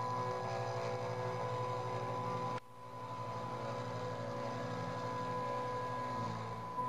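Small desktop CNC router machining plywood: its spindle motor running with a steady whine alongside the tones of the stepper motors driving the axes. The sound drops out abruptly about two and a half seconds in and then comes back.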